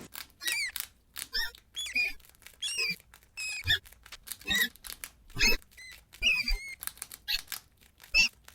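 Rats squeaking: a rapid string of short, high chirping squeaks, some bending up and down in pitch, about two a second with brief gaps between.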